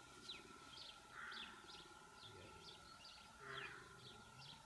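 Faint outdoor birdsong: a steady run of short, high, downward-sliding chirps, about three a second. A harsher caw-like call comes twice, about a second in and about three and a half seconds in, over a faint steady hum.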